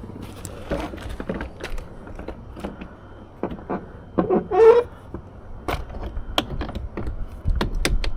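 Hard plastic trim of a Dodge Charger door panel being handled and pressed into place: scattered sharp clicks and knocks, with a brief louder squeak about four and a half seconds in.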